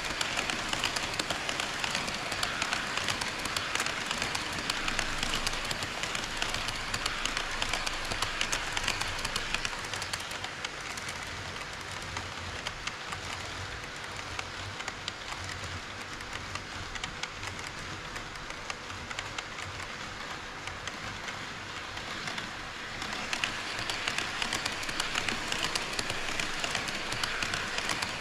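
HO scale model train running on KATO Unitrack sectional track, its metal wheels making a dense, steady clicking rattle over the rails and joints. The rattle eases for a stretch in the middle and grows louder again near the end.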